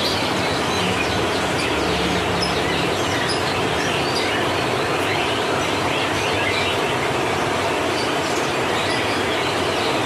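Steady din of many caged songbirds chirping and singing at once, a dense, even chorus, with a low hum under it for the first few seconds.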